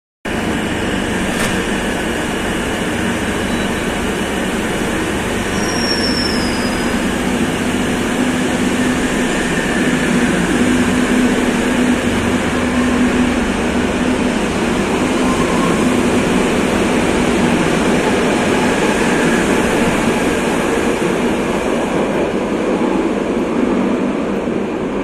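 Madrid Metro series 2000B electric train pulling out of the station: a continuous loud rumble of wheels on rails and traction motors, with a low hum in the middle as it gathers speed, carrying on as it runs into the tunnel.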